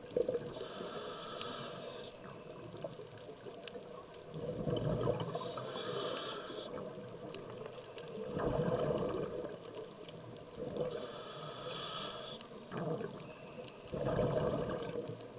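Scuba diver breathing through a regulator underwater: hissing inhales alternating with bursts of bubbling exhaled air, about three breaths in all.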